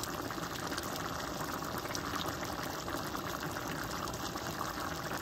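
Ground chicken and mung bean soup boiling in a wide pan on the stove: a steady bubbling with a fine crackle.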